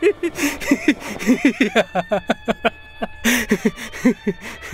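A man laughing hard in a long run of rapid 'ha-ha' bursts, a derisive laugh. He draws a noisy breath about three seconds in and laughs on.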